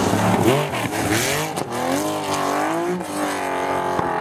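Porsche 911 rally car's flat-six engine revving hard as the car slides out of a gravel corner and accelerates away. The pitch climbs, drops briefly at each gear change and climbs again, then settles into a steadier, wavering note.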